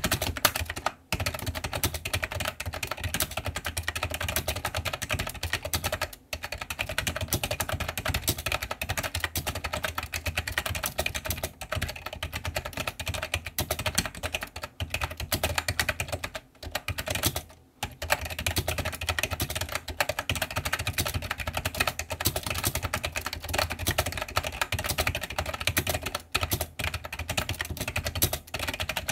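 iMagic G Keyboard II Echo plunger keyboard being typed on fast and without letup, a dense run of key clacks. The typing breaks off briefly a few times: about a second in, around six seconds in, and twice between sixteen and eighteen seconds in.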